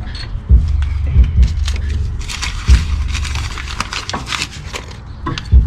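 Sharp knocks of hand tools and car parts, with a dense stretch of scraping or rubbing noise in the middle, over a steady low rumble of handling on the microphone.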